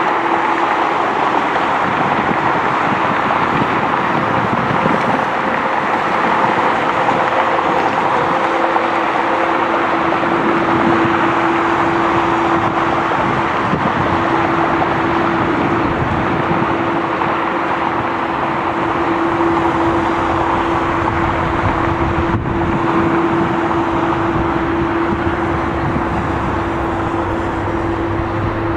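Jet engines of a Boeing 787 Dreamliner at taxi power: a steady rush with a steady low hum on top.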